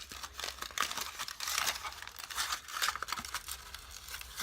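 Sticky, unfinished slime being squeezed and stretched in the hands, giving a continuous run of irregular crackling and clicking.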